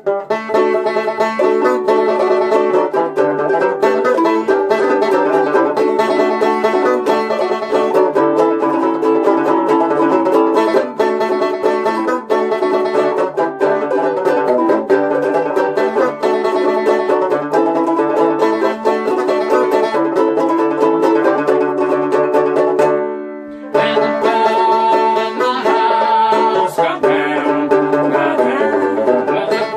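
An instrumental break of fast, steady picking on an acoustic plucked string instrument. The playing breaks off for under a second about three-quarters of the way through, then picks up again.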